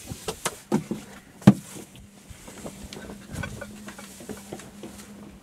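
Thick braided rope being handed in loops over a cockpit winch: soft knocks and rustles of the line against the winch and fibreglass, the loudest about a second and a half in. A faint steady hum runs beneath from about two seconds in.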